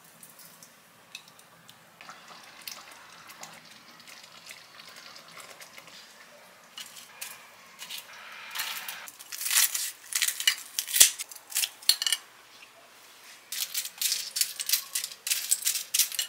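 Crisp bursts of small clicks and clatter as fried toppings are set onto a ceramic plate of curry rice. Near the end, fried garlic pieces are tipped out of a wire fry basket onto the plate, rattling as they land. The first half is much quieter, with only faint handling.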